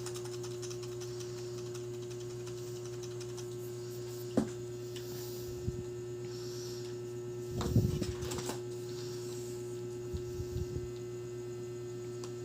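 Steady electrical mains hum, with a sharp click about four seconds in, a louder cluster of knocks and rustles around eight seconds, and a few light taps after that.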